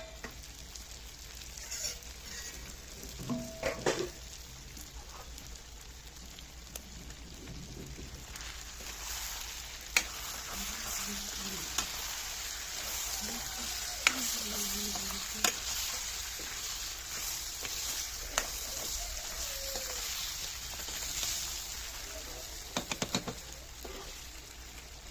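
Food frying and sizzling in oil in a pan while being stirred, with a utensil clinking sharply against the pan several times.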